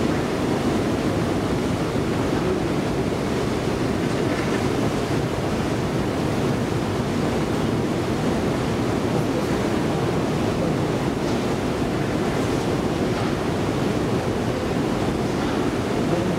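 Long metro escalator running, a steady even rumble from its moving steps and drive, heard while riding on it.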